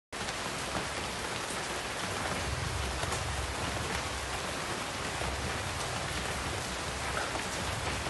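Steady rain falling on broad, wet tropical leaves, with a few individual drops ticking now and then.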